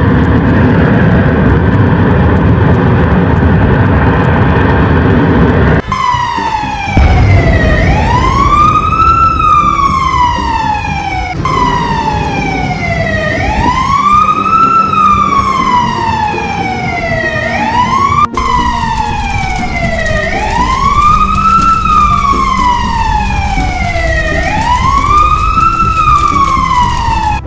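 A loud rushing noise for about the first six seconds, then an emergency vehicle siren wailing, each cycle a quick rise and a slower fall, repeating about every five seconds.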